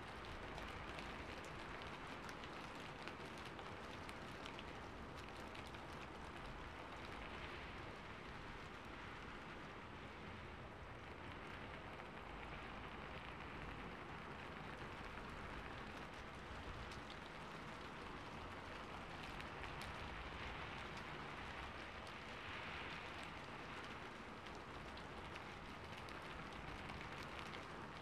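Soft, steady rain falling, with scattered drop ticks.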